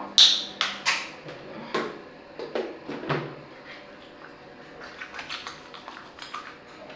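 Several sharp knocks and clicks over the first three seconds or so as a plastic bottle and a menstrual cup are handled and set down. Fainter small clicks follow while the cup is washed and rubbed between the hands.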